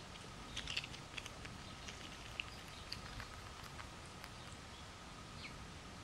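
Eastern chipmunk rummaging through a pile of peanuts and seeds close to the microphone: scattered clicks and rustles of shells and seeds, busiest in the first three seconds or so. A faint bird chirp or two comes from the background.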